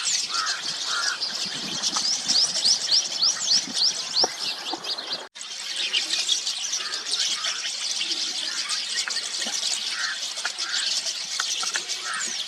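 A flock of rosy starlings chattering together, with a run of quick, falling whistles about two to four seconds in. The sound breaks off for a moment about five seconds in.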